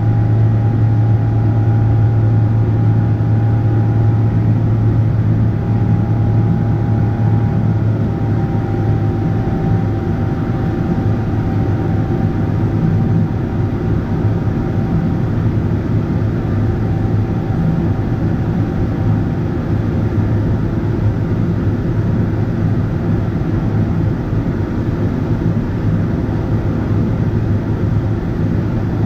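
Cabin noise of a Boeing 777-300ER's GE90-115B engines heard from a window seat: a steady, loud low drone. A faint high tone fades out over the first half.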